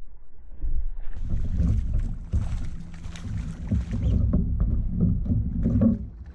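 A hooked largemouth bass thrashing and splashing at the water's surface beside a kayak during the fight, in repeated irregular splashes over a low rumble.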